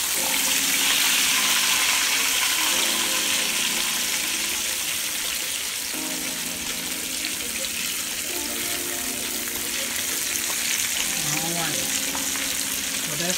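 Breaded fish fillets frying in a skillet of hot oil: a steady, busy sizzle, a little louder in the first couple of seconds.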